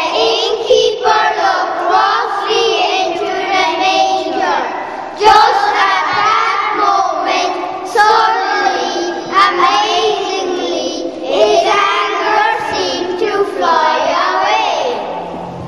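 A group of young children singing a song together, unaccompanied, in phrases a few seconds long, with the last note fading near the end.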